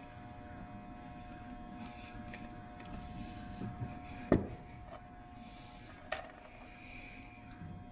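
Light metallic clicks and clinks of steel piston rings being handled and fitted onto an engine piston by hand, with one sharp click about four seconds in and another about two seconds later. A faint steady hum runs underneath.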